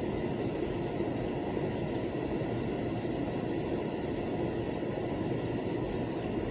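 Freight train cars rolling past in a steady rumble.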